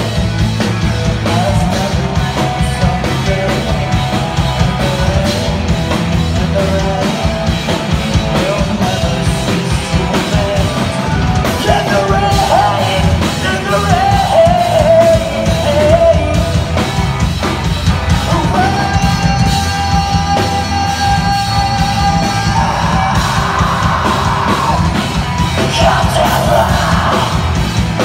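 Pop-punk band playing live: drum kit, bass and electric guitar going steadily, with yelled, sung vocals over the music in the middle and latter part.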